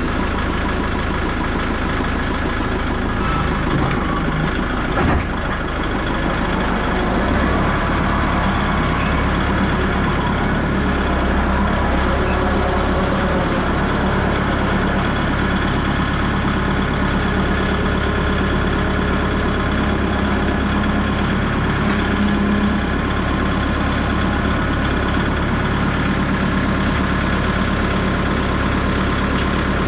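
A vehicle engine running steadily, with a single short knock about five seconds in.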